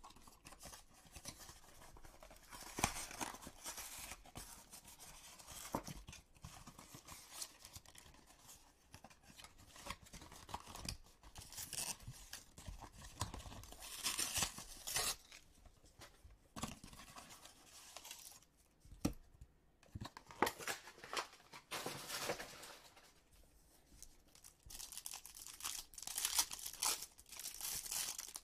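A retail pack of baseball cards being torn open by hand: irregular tearing and crinkling of the wrapper packaging, coming in bursts with quieter gaps between.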